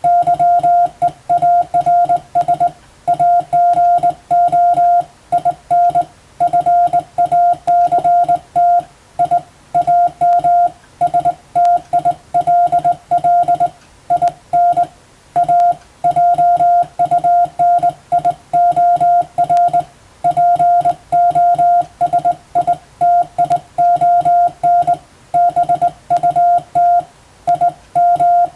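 Hand-keyed Morse code (CW): a steady beeping tone switched on and off in dots and dashes at an even sending pace, spelling out telegram-style practice text in international Morse.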